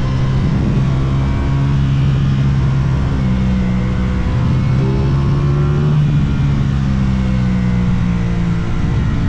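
Aprilia RS660 parallel-twin motorcycle engine running under way, its pitch rising and dropping several times with throttle and gear changes, over a steady rush of wind noise.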